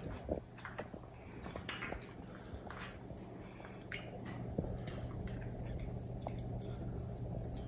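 Quiet eating: forks clicking and scraping in takeout food containers, with soft chewing.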